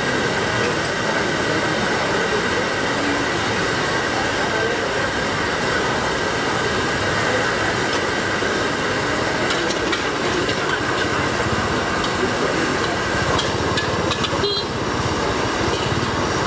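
Gas wok burners at a street food stall running flat out with a steady rushing noise. A few metal clinks of a ladle against a wok come in the second half.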